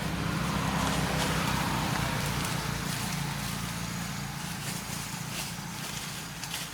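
A motor vehicle's engine running with a steady low hum, slowly fading over the few seconds, over outdoor background noise.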